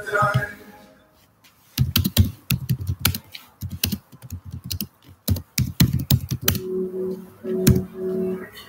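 A song stops, and after a brief lull comes a run of irregular sharp clicks and knocks lasting several seconds. Near the end, music with steady held notes starts.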